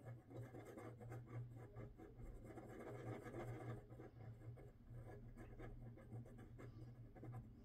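Glue pen tip scratching and rubbing across paper, a faint continuous run of soft scratches, with a low steady hum underneath.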